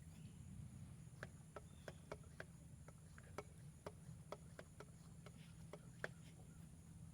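Quiet background with about a dozen faint, sharp clicks at irregular intervals, from about a second in until about six seconds in.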